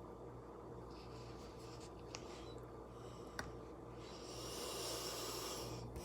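Faint handling sounds while tacos are topped with string cheese: a couple of light clicks, then a soft scratchy rustle for about two seconds near the end, over a low steady hum.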